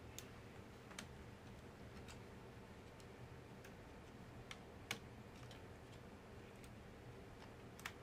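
Faint, irregular small plastic clicks of cable connectors being unplugged from a MacBook Pro Unibody logic board, the sharpest about halfway through, over a steady low hum.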